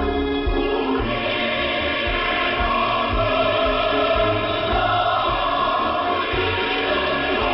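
A mixed choir singing with musical accompaniment, received over shortwave radio. The sound is band-limited, with nothing above the receiver's narrow audio bandwidth.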